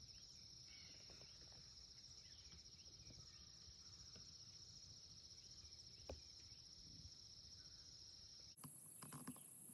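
Faint field ambience of insects, crickets, trilling steadily at a high, even pitch, with a few faint chirps. About eight and a half seconds in, the trill cuts off suddenly and a higher-pitched insect trill takes its place.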